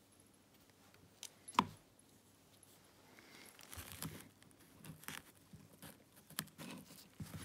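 Faint handling of a brass pipe fitting while jointing string is wound onto its threads: small metallic clinks and rustling, with one sharp click about a second and a half in.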